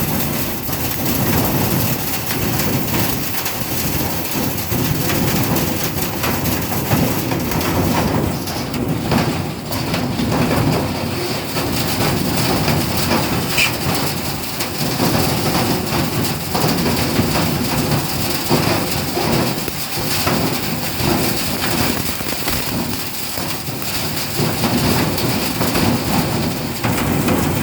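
Air duct cleaning: a compressed-air whip thrashing and blowing inside sheet-metal ductwork, knocking loose sticky debris that rattles through the ducts, over the steady rumble of an industrial gasoline-powered duct vacuum. The high hiss changes about eight seconds in.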